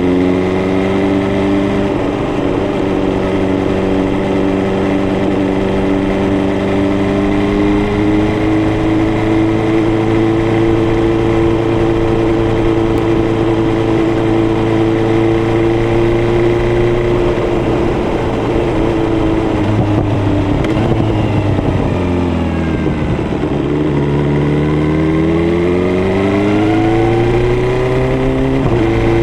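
BMW S1000R's inline-four engine running while riding: a steady cruise with the pitch slowly climbing, then dropping off as the bike slows about two-thirds of the way through, and rising again as it accelerates near the end.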